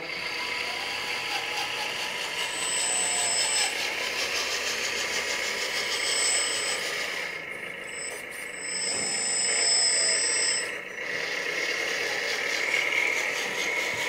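Simulated diesel engine sound from the LESU 1/14 RC road roller's onboard sound module, running steadily as the model drives. A high thin whine comes and goes three times, from its electric drive as it moves.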